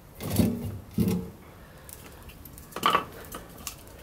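Split firewood logs knocking against each other as they are laid crosswise in a wood-fired oven: three short wooden clunks, the last about three seconds in.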